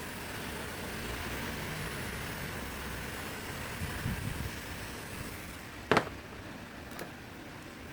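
Small electric motor running with a steady hiss and a faint high whine, which stops a little before six seconds in; then a sharp click, and a lighter click about a second later.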